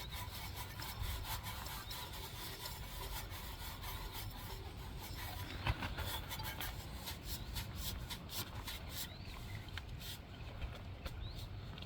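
A new oil filter being spun onto a motorcycle engine by hand: faint rubbing and scraping with many small scattered clicks.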